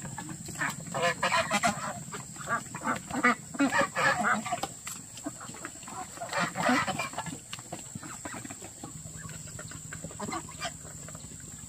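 Domestic waterfowl such as geese or ducks calling over and over in quick irregular strings, busiest in the first seven seconds and thinning out after that.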